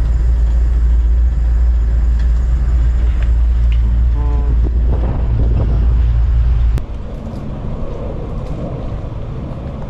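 A motor vehicle engine runs with a steady low rumble and a brief pitched tone near the middle. About seven seconds in, the sound cuts off abruptly to a quieter outdoor background.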